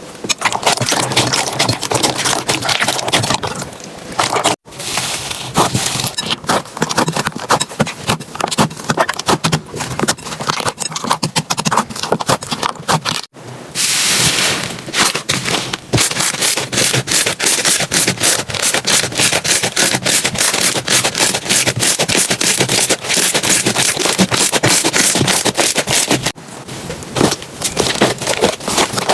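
Slime being squeezed and kneaded close to the microphone: dense crackling and popping clicks with rubbing and scraping, which break off briefly three times as the slime changes.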